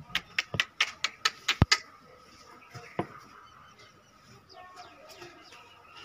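A quick run of about eight sharp clicks or knocks in the first two seconds, then a single one about three seconds in.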